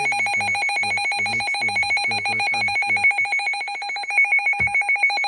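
Weather radio emergency alert tone announcing a Special Marine Warning: a loud, rapidly pulsing electronic tone, about fifteen pulses a second. There is a short click a little over four and a half seconds in.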